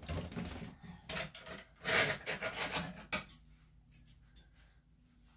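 Metal grooming comb drawn through a puppy's fur: a quick run of rasping, rubbing strokes for about three seconds, loudest about two seconds in, then two brief scrapes.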